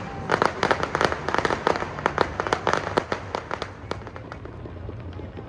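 Fireworks crackling overhead: a rapid run of sharp cracks from many small bursts, thinning out about four seconds in.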